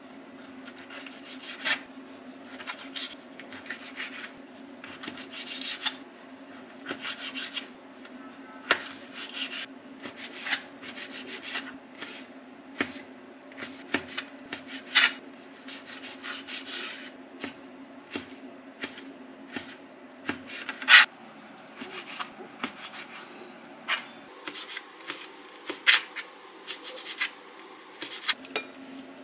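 Kitchen food preparation: irregular rubbing and scraping strokes with sharp taps, scattered unevenly. A low steady hum sits underneath.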